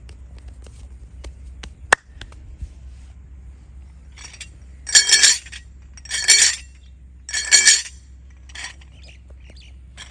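Hands at work in a head massage: scattered sharp clicks, one louder about two seconds in, then three short bursts of rapid, clinking clicks about a second apart.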